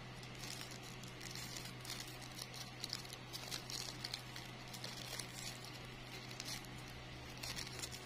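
Faint, scattered crinkling and rustling of a thin yellow plastic-bag strip being wound by hand around a wire stem.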